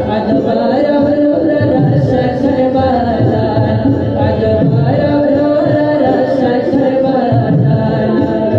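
A noha, a Muharram lament, sung with instrumental accompaniment. It plays continuously at a steady loudness.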